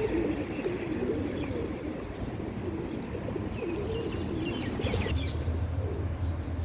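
Domestic pigeons cooing, several overlapping low warbling coos, with a few short high chirps from other birds about four to five seconds in.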